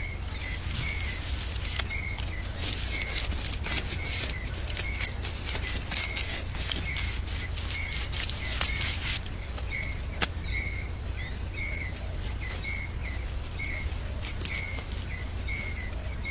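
A small bird chirping over and over, short high notes about twice a second, with scattered sharp clicks and a steady low rumble underneath.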